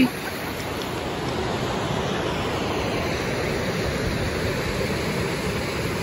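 Shallow rocky creek water rushing steadily over stones, a constant even rush.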